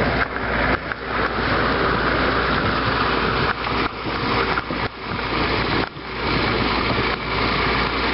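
Farm tractor engine running as it tows a stone boat, mixed with the loud, steady scrape and rattle of the sled dragging over the ground.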